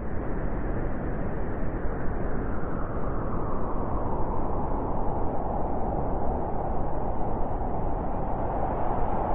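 Steady white noise for sleep: an even, dull rushing sound with its hiss muted at the top, holding at one level without change.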